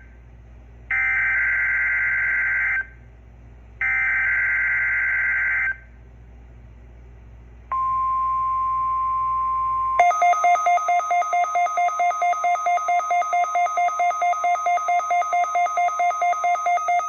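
Emergency Alert System data header: two bursts of screechy digital data tone about a second apart. About two seconds later comes the steady single-pitch National Weather Service warning alarm tone for about two seconds. It gives way to a loud pulsing alert tone of about four pulses a second.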